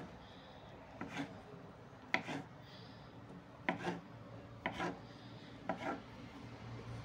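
Kitchen knife cutting a rolled log of soft dough into pieces on a wooden table: each cut is a short knock and scrape of the blade on the wood, about once a second.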